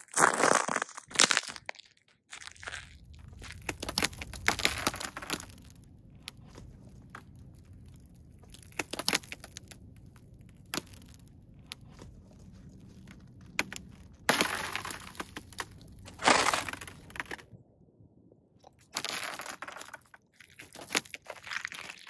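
Thin ice crunching and cracking under boot steps, in several separate bursts with sharp snaps between them. A low steady rumble runs under the middle stretch.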